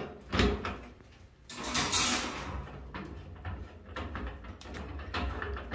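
Adjustable wrench and old chrome shower head being worked loose on the shower arm threads: a few sharp knocks of metal on metal, a longer scrape about two seconds in, then small clicks and rattles as the head is turned off by hand.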